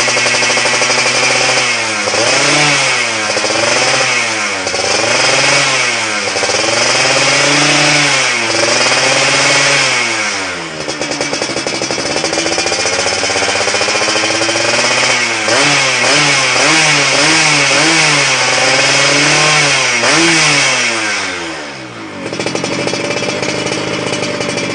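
Yamaha F1ZR's two-stroke single-cylinder engine revved again and again through its exhaust, the pitch climbing and falling in quick blips. It settles back to idle near the end.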